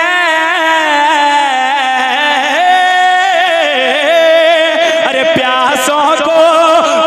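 A man singing a naat into a microphone, drawing out long ornamented notes that waver and turn in pitch, with no clear words.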